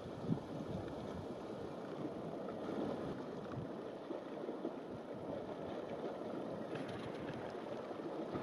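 Steady rushing outdoor wind noise with no distinct events, apart from one short soft knock about a third of a second in.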